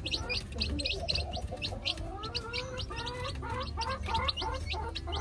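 Newly hatched chicks peeping rapidly: many short, high, falling peeps, several a second, with lower gliding calls mixed in.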